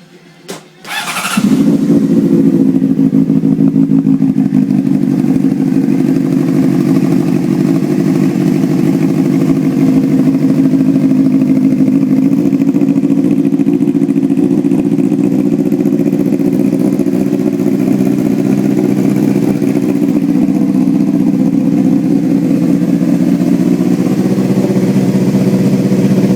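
2005 Honda CBR600RR inline-four starting through a shortened Two Brothers carbon fiber aftermarket exhaust: it catches about a second in and settles into a loud, steady idle.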